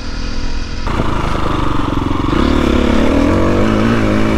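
Dirt bike engine running and pulling away. Its pitch rises and wavers as the throttle opens, with an abrupt change in the sound about a second in.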